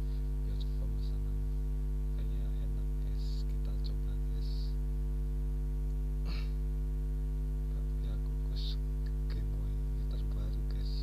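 Steady low electrical mains hum, with a faint click about six seconds in.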